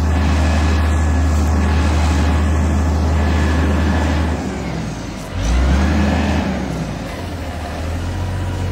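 A heavy engine running steadily with a deep hum; its note drops about four seconds in, then picks up again with a surge a second or so later and settles back.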